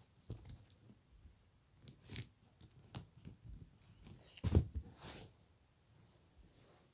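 Faint handling noises: rustling and light clicks as a plastic action figure is moved over fabric upholstery and a furry rug, with one louder thump about four and a half seconds in.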